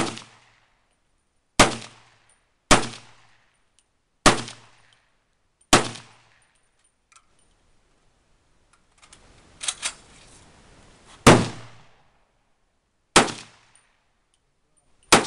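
1943 M1 Carbine firing .30 Carbine rounds in semi-auto, each shot a sharp crack with a short ringing tail. Five shots come a second or so apart, then a pause of several seconds with some quieter clatter, then three more shots about two seconds apart.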